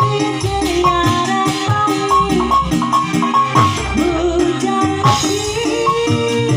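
Live band music: a melody with sliding notes over drums, a heavy bass and shaken percussion.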